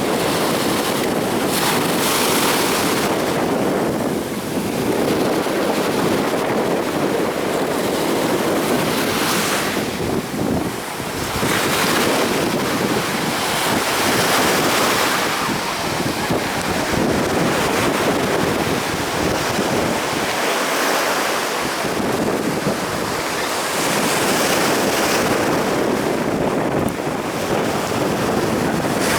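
Storm surf: heavy waves breaking and washing in without pause, swelling to louder crashes every several seconds. Wind buffets the microphone throughout.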